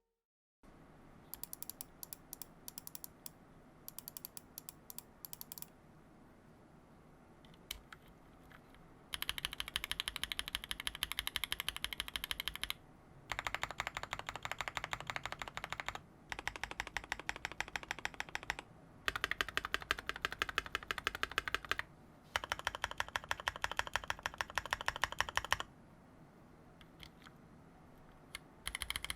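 Mechanical keyboard with a brass plate and ePBT keycaps being typed on. A few scattered keystrokes come first, then several bursts of fast typing a few seconds each, with short pauses between them.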